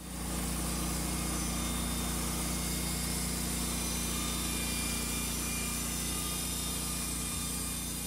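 EZ Boardwalk 40 band sawmill running steadily under load as its band blade saws a board off a squared cant: an even engine drone with a hiss on top.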